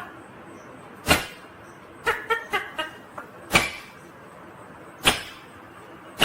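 Ringneck parakeet giving a quick run of short chirps, set among four sharp knocks spaced a second or more apart.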